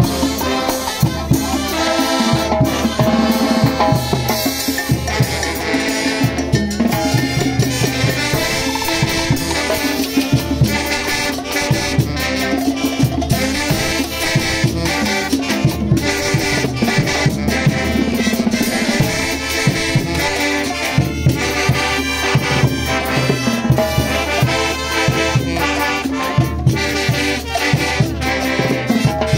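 Street brass band playing: sousaphones and baritone horns carry the tune over a steady beat of snare drums, bass drum and crashing hand cymbals.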